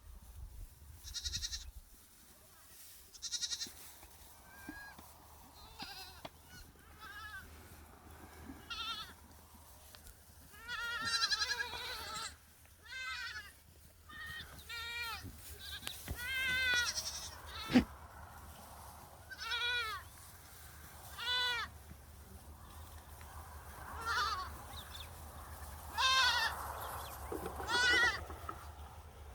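Goats bleating over and over, a dozen or so separate calls, some rising and falling in pitch. One sharp knock about eighteen seconds in.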